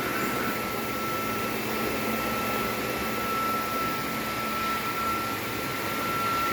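Industrial cleaning machine running steadily, a constant high whine over a continuous whirring hiss.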